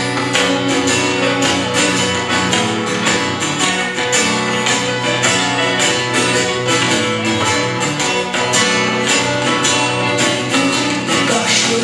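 Live band playing an instrumental break, with strummed acoustic guitar in a steady, brisk rhythm.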